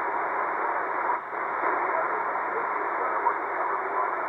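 Shortwave static from a C. Crane Skywave SSB2 receiver tuned to a single-sideband ham radio conversation: a steady hiss with a faint, barely readable voice under it, and a brief drop in the noise about a second in.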